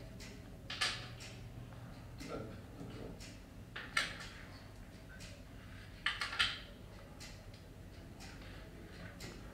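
Plastic Triominos tiles clicking and clattering on a tabletop as they are handled and set down, in a few short bursts: about a second in, about four seconds in, and a quick cluster around six seconds.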